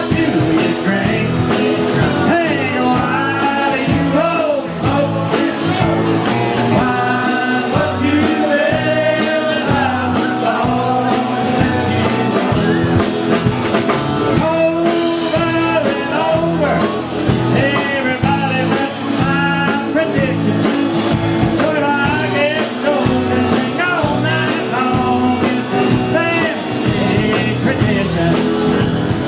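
A live country band playing an up-tempo number with a steady beat, in a stretch without clear lyrics.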